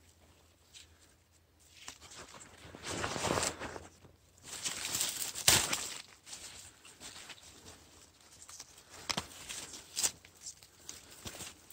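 Dry fallen leaves and undergrowth rustling and crunching as someone moves through them, in two longer stretches about two and a half and four and a half seconds in, with a sharp click about five and a half seconds in.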